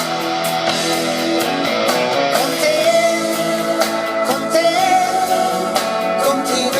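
Pop-rock song with guitar and a singing voice, played through MB Quart 1000 loudspeakers with freshly rebuilt crossovers.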